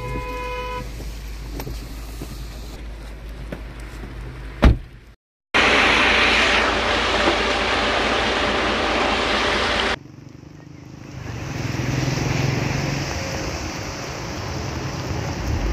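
Outdoor road sound in several pieces joined by cuts: vehicle noise with a short horn-like tone at the very start and a sharp knock about five seconds in, followed by a brief dropout. Then a loud, steady hiss for about four and a half seconds, cutting off suddenly into the lower rumble of traffic with engines running.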